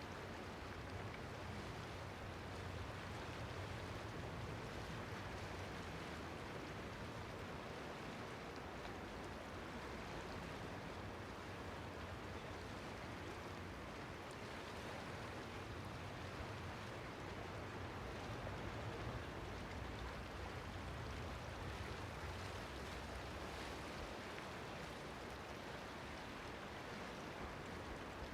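Steady wash of sea water at a small harbour, waves lapping with a low rumble underneath, without distinct splashes or breaks.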